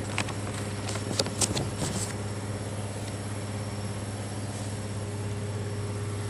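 Steady low machine hum, like an idling engine, with a few sharp clicks and knocks in the first two seconds.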